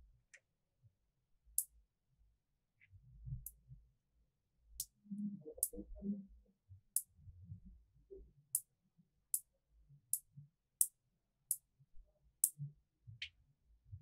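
Small magnetic balls clicking as they snap onto a cluster one at a time: about a dozen short, sharp clicks, roughly one a second, with soft handling rustle between them.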